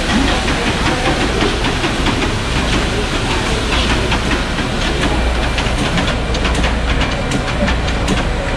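Bottling line machinery running: a steady mechanical din with a low hum and rapid, irregular clicking and clattering of plastic bottles, the clicks growing more distinct in the second half.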